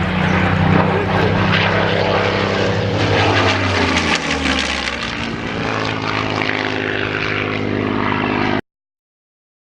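Piston-engined propeller warbird flying past, its engine note dropping in pitch about three to four seconds in as it passes, then cutting off abruptly near the end.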